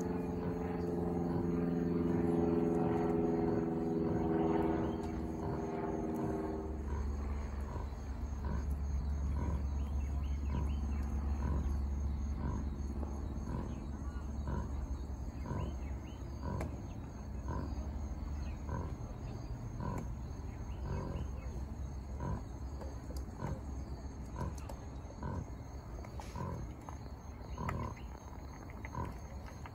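Mini pigs grunting over and over in short, evenly spaced calls, with a steady droning hum that stops about six seconds in.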